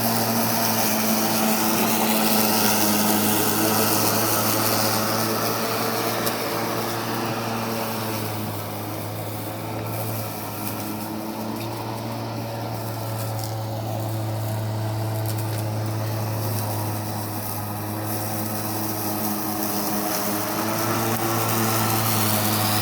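Greenworks electric lawn mower running and cutting grass as it is pushed along, a steady low motor hum with a whirring blade that sounds like a vacuum cleaner. It grows a little quieter midway and comes back up near the end.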